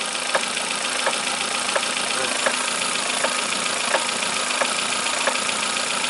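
Kia Picanto's steering rack knocking about once every 0.7 seconds, eight knocks in all, as the steering is rocked back and forth, over the engine idling. The mechanic puts the knock down to play in a worn bushing inside the rack, which he says can only be cured by replacing the rack.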